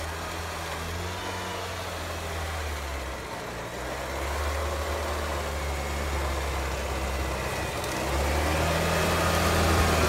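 UAZ-469 off-roader's engine running at low revs as the vehicle crawls forward, growing louder about eight seconds in as it comes close.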